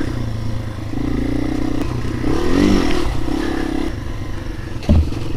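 Yamaha TW200's single-cylinder four-stroke engine running as the bike rides a dirt road, revving up and easing back down about halfway through. A single thump near the end.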